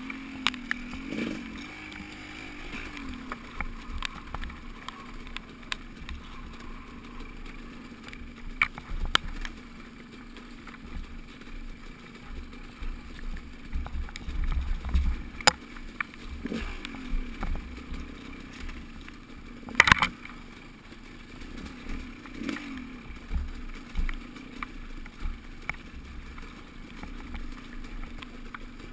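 Steady riding noise from a moving vehicle, with low rumble and wind on the microphone. Scattered sharp clicks and rattles run through it, the loudest about two-thirds of the way in, and a low hum rises and falls in pitch a few times.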